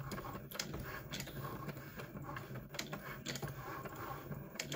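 Cricut Maker's stepper motors running as it draws with a pen, sliding the pen carriage and moving the mat back and forth. A low hum shifts in pitch as the motors change speed, with scattered small clicks.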